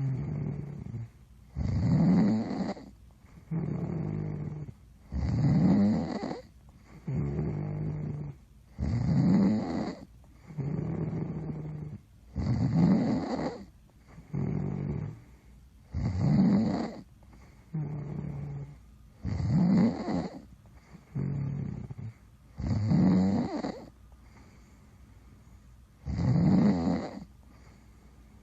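Steady, regular snoring: a loud, rasping snore about every three and a half seconds, each followed by a quieter breath with a steady low pitch, and a somewhat longer pause between breaths near the end.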